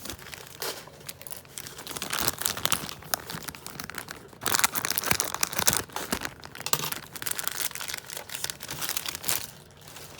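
Plastic packaging crinkling and rustling as small blind-pack bags are handled and torn open, in irregular bursts with a louder stretch about halfway through.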